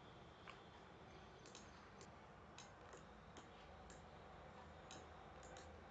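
Faint, scattered computer keyboard key clicks, about eight of them a few tenths of a second to a second apart, as numbers are typed in; otherwise near silence.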